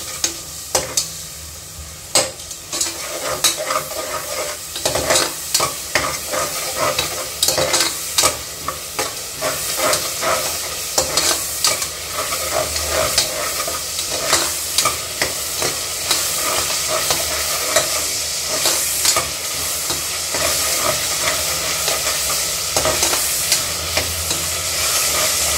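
Ginger-garlic paste frying with onions and herbs in hot oil in an aluminium pressure cooker, sizzling steadily, while a metal spatula scrapes and knocks against the pot in quick repeated strokes. The sizzle grows louder after the first couple of seconds.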